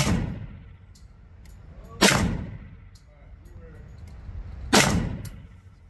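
Three single shots from a Kriss Vector in .45 ACP, slow aimed fire about two and three seconds apart. Each shot has a long reverberant tail.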